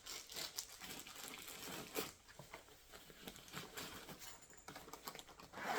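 Rustling, crinkling and scattered light clicks of items being handled and shifted inside a backpack pocket.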